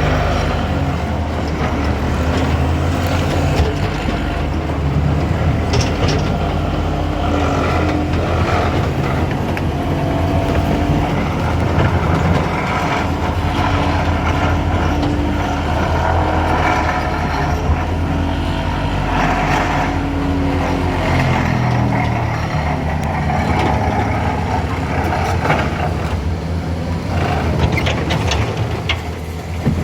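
Motor vehicle engines running close by without a break, their pitch rising and falling in places.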